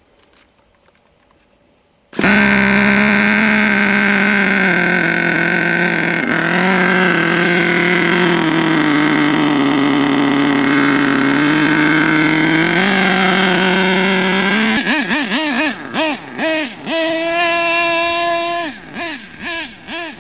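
HPI Savage 25 nitro RC monster truck's small two-stroke glow engine, fitted with a new exhaust, starts suddenly about two seconds in and runs at a steady fast idle. Near the end it revs up and down in quick bursts as the truck drives off.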